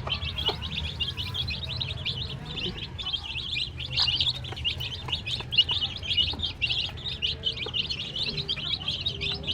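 Many birds chirping together in a dense, continuous stream of short high chirps, with a few scattered light clicks among them.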